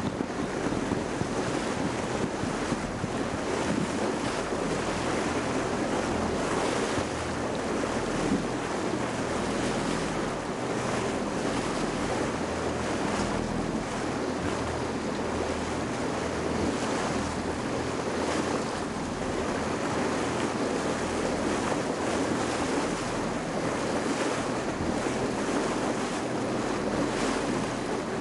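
Wind buffeting the microphone and water washing around a boat at sea: a steady rushing noise with a low hum underneath.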